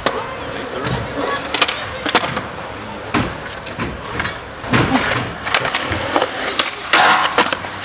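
Skateboard wheels rolling over concrete, with several sharp clacks of the board and a louder scrape near the end.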